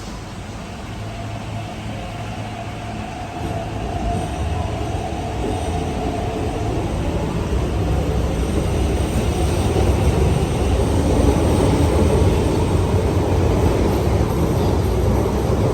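An MTR East Rail Line electric train pulling out of the platform, a steady rumble that grows steadily louder as it picks up speed.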